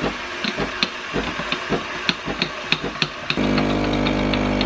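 A metal spoon clicking irregularly against a glass mug while stirring. About three seconds in, the coffee machine's pump starts a steady hum as coffee begins to pour.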